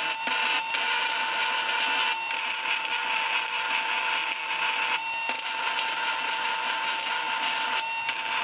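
Wire-feed welder arc crackling steadily as a steel headlight bracket is welded on, stopping briefly about two, five and eight seconds in between runs.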